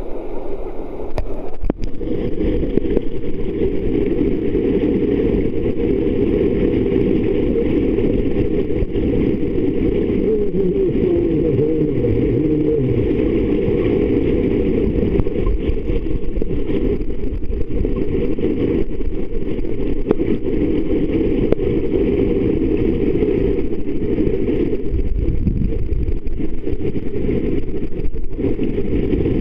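Muffled underwater sound of swimming-pool water moving against a submerged camera: a steady low rumble that sets in about two seconds in, as the camera goes under the surface.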